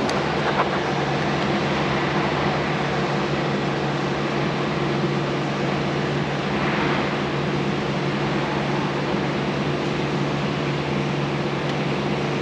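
Steady mechanical hum of a machine running, with a low droning tone and an even rushing noise, unchanged throughout.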